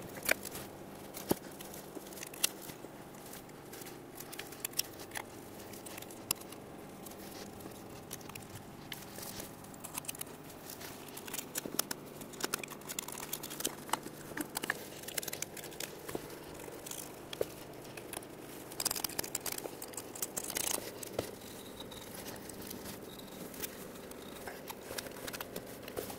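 Razor blade scraping old RTV sealant off the aluminum cylinder head surface of a 5.4L V8: faint, irregular scratches and light ticks, busier for a few seconds about three quarters of the way through.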